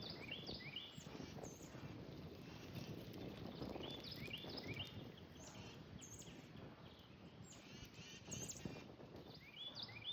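Small birds chirping in the morning: clusters of quick, rising chirps, one cluster about four seconds in, another near the end, over a faint low background rumble.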